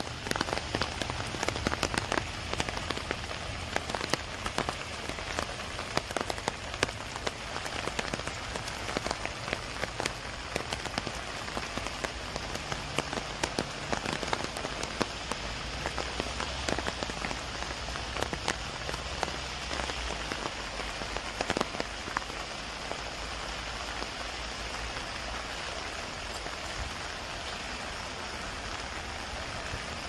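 Spring rain falling on a pond of broad lotus leaves: a steady hiss with many close, sharp drop ticks, thinning after about twenty seconds into a smoother, even hiss.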